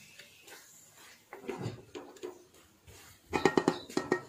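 Wooden spoon stirring thick spinach-and-chicken curry in a steel pan: soft scraping, then a quick run of louder knocks with a faint metallic ring against the pan about three seconds in.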